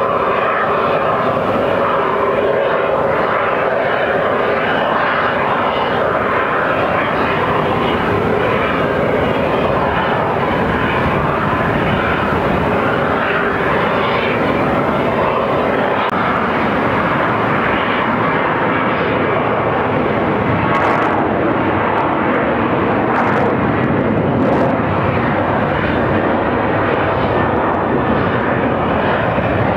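Jet airliner engines running at takeoff power on the runway: a steady, loud rush of engine noise.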